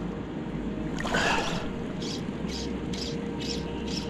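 River water rushing steadily around a wading angler, with a brief rustle about a second in; from about halfway, fly line is stripped in with short, regular pulls, each a quick high scratchy zip, about two a second.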